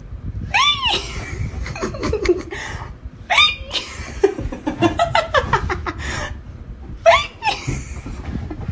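A young woman laughing hard in three fits, each starting with a high squeal and running into quick, rapid bursts of laughter.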